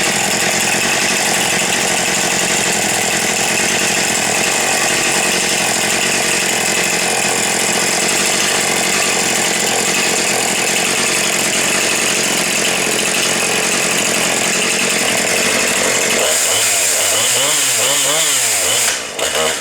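Chainsaw engine running loud and steady at high revs, then its pitch swings up and down several times over the last few seconds.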